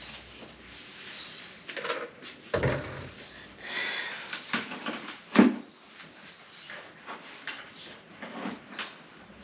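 Scattered knocks and thuds of things being handled, with some rustling between them; the loudest knock comes about five and a half seconds in.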